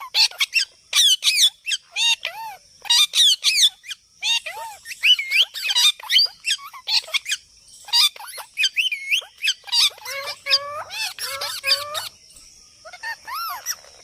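Several birds calling at once: a dense, busy stream of squawks and chirps, many quick rising and falling calls overlapping, with short gaps between bursts.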